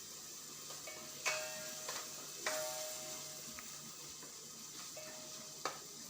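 Onion-tomato sauce frying in ghee with a faint sizzle while a spoon stirs it, knocking against the pan a few times with a short ringing tone.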